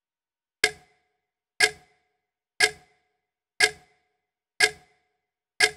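Clock ticking sound effect: six sharp, evenly spaced ticks, one a second, each with a short ringing tail.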